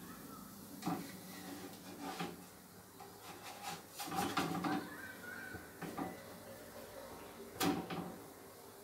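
Kitchen handling sounds: a utensil and a frying pan knocking now and then on a gas hob, several separate clunks with a cluster about four seconds in and the loudest near the end.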